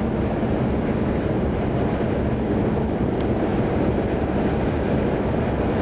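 Steady road noise of a car driving at freeway speed, heard from inside the cabin: a constant low drone of tyres, engine and wind.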